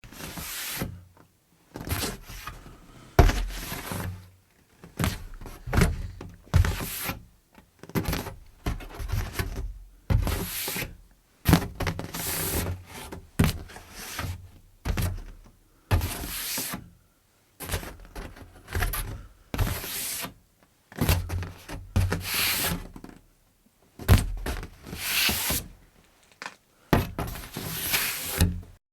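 Foam board set onto an easel again and again: each time a light knock and a short scrape of the board against the easel, about one every second or two.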